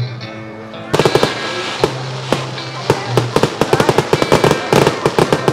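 Fireworks display: sharp bangs and crackling pops from the shells bursting start about a second in and come thicker toward the end. Music with a steady low note plays underneath.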